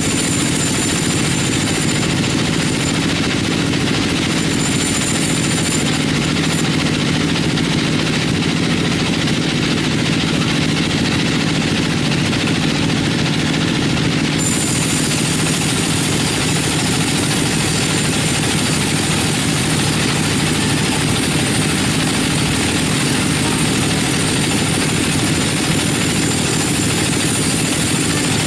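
A 42-inch bandsaw mill running steadily as its blade saws lengthwise through a large teak log. A thin high whine comes and goes twice in the first few seconds, then holds from about halfway through.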